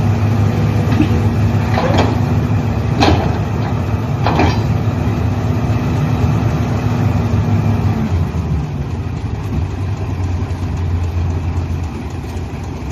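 Heavy diesel engine running steadily, with three sharp metallic clanks about two, three and four and a half seconds in. The engine note drops about eight seconds in, and the sound fades near the end.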